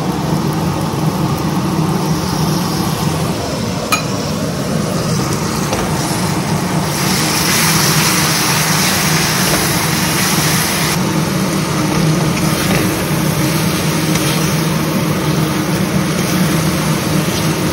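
Tomatoes and spices frying in hot oil in a cooking pan: a steady sizzle over a constant hum, the hiss turning brighter for a few seconds midway.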